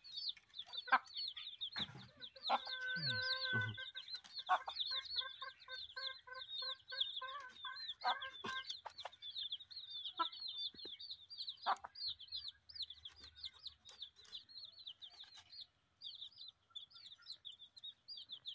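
Chickens peeping and clucking: a fast, steady run of short high peeps, with a longer clucking call about three seconds in. Scattered sharp clicks and taps come from a knife cutting eel flesh against a small wooden block.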